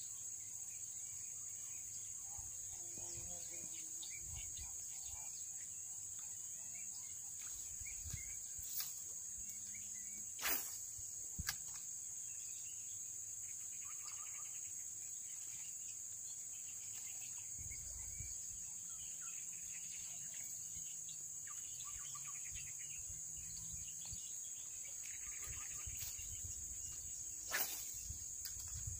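Steady high-pitched chorus of insects, with two sharp clicks a little after ten seconds in and another near the end.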